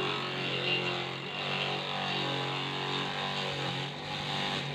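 Small electric grass chopper running steadily, its motor humming under the rough shredding noise of its blades cutting green corn stalks and leaves fed into the hopper.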